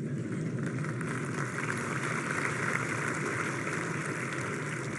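A large audience applauding steadily, a dense even wash of many hands clapping in a big hall.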